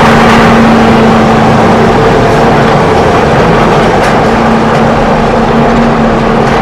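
Steady, loud engine-like running noise with a constant low hum.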